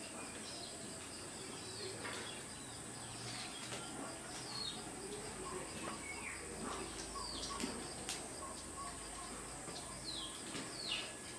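Faint bird calls, a few short downward-sliding chirps, over a steady high insect drone like crickets.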